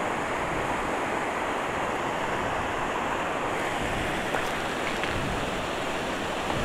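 Steady rush of a fast mountain river running through white-water rapids.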